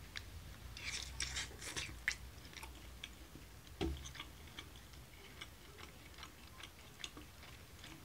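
Eating at the table: small clicks and taps of chopsticks against a ceramic rice bowl, with chewing, and a soft knock about four seconds in.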